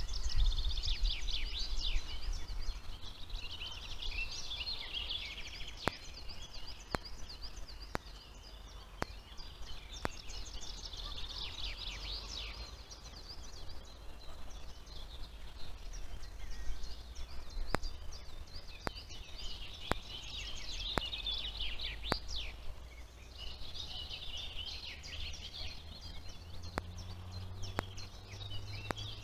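Several small songbirds singing, with trilled phrases repeating every few seconds, over a steady low hum and faint clicks about once a second.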